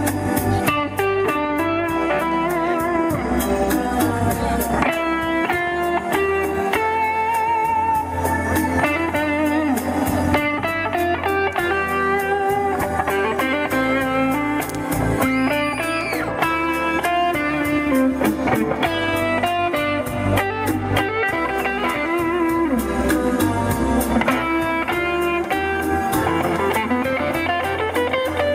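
Electric guitar music played over a steady beat.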